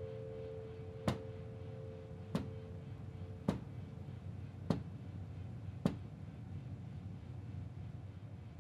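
Five sharp, evenly spaced ticks, about one every 1.2 seconds, over a low steady hum; they stop about six seconds in. A held mallet-instrument chord from the score fades out over the first three seconds.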